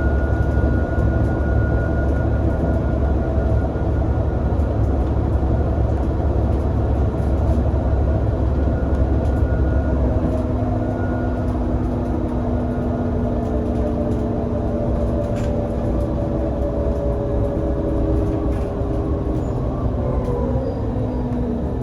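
Irisbus Citelis 18 articulated bus with a twin-turbo IVECO Cursor 8 six-cylinder CNG engine and ZF Ecomat automatic gearbox, heard from on board while under way. It runs with a heavy low rumble for about the first half. It then settles into steadier running with a droning whine, and the whine's pitch falls near the end.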